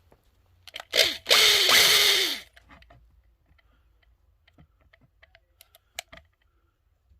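A power drill runs in one short burst of about a second and a half, its pitch sagging as it runs. Scattered light clicks and taps of parts being handled follow.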